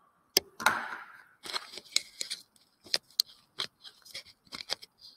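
Close handling noise of the camera as its lens is wiped clean: a quick run of sharp clicks, scrapes and rubbing rustles. It cuts off suddenly near the end.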